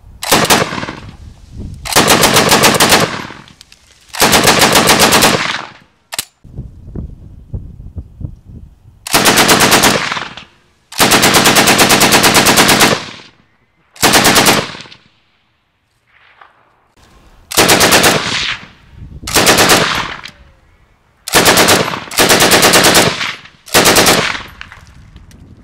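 Bren light machine gun firing about eleven bursts of automatic fire. Each burst lasts from half a second to two seconds, a rapid, even string of shots, with quiet gaps between bursts.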